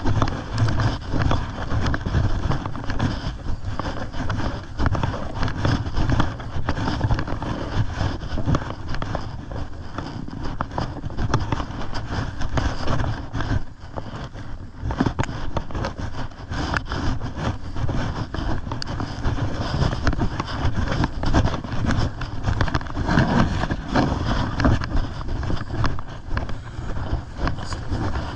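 Footsteps swishing through tall dry grass, with stems brushing against legs and a body-worn camera. Under it is a steady low rumble of movement on the microphone.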